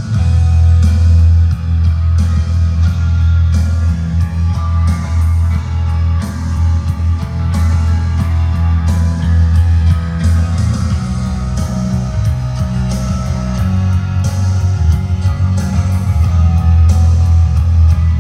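Guitar rock music played back on a Panasonic RQ-SX76 through its speakers, recorded close to the speakers on a phone, with heavy, booming bass.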